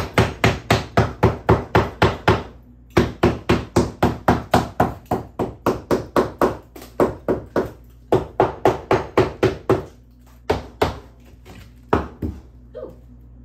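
Hammer striking the old cement chinking between the logs of a log wall to knock it out, in quick runs of blows at about five a second. A short pause comes about two and a half seconds in, and near the end only a few single blows.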